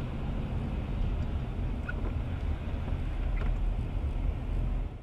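Steady low rumble of a moving vehicle with wind noise on the microphone, with a few faint ticks; it cuts off suddenly at the very end.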